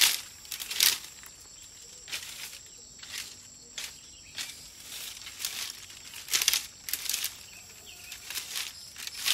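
A makeshift twig broom sweeping over dry leaves and dirt: about ten brisk, swishing strokes, roughly one a second.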